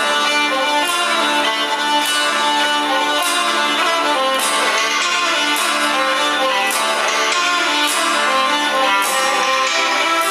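Background music with sustained pitched notes over a steady beat about once a second.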